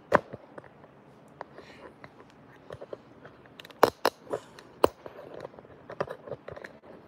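A phone and its clip-on phone holder being handled and re-secured close to the microphone: scattered sharp clicks and knocks with rubbing in between, the loudest a few knocks in the middle.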